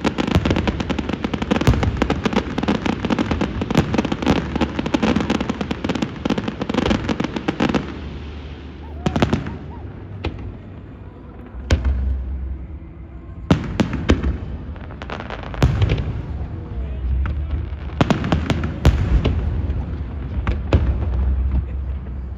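Aerial fireworks bursting: a dense run of rapid crackling for the first eight seconds or so, then separate sharp bangs every second or two with low rumbling between them.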